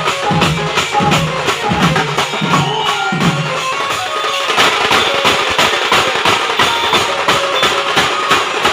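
Loud band music driven by fast, dense drumming, with a melody line above; a low bass pattern drops out about three and a half seconds in while the drumming carries on.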